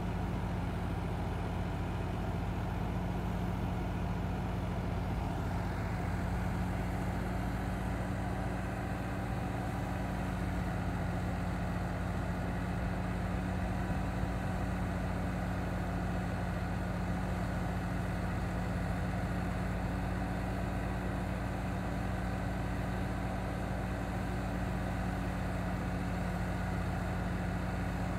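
Massey Ferguson 360 Turbo tractor's diesel engine running steadily under load at about 1800 rpm, driving a thresher through its PTO shaft, with the thresher running along with it.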